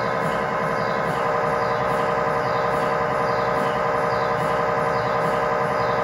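GE MRI scanner running an axial T1 fast spin echo (FSE-XL) sequence: the gradient coils make a loud, steady, many-toned buzz with a pattern that repeats about once a second.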